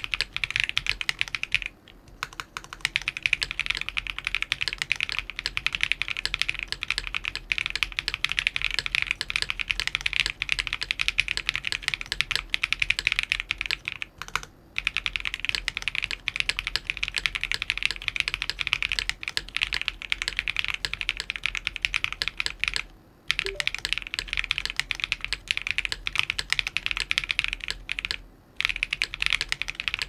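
Fast, continuous typing on a QK60 custom mechanical keyboard with lubed KTT Darling linear switches on a POM plate and GMK Grand Prix ABS keycaps: a full-foam build that sounds a little muted but still clacky. The typing stops briefly a few times.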